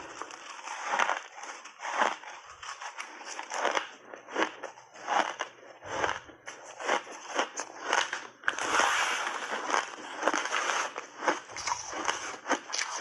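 Refrozen shaved ice being bitten and chewed close to the microphone: a rapid, irregular run of crisp crunches, thickest about two-thirds of the way through.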